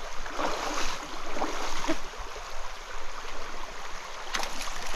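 Stream water running and splashing close to the microphone, with uneven surges and a few short splashy clicks near the end.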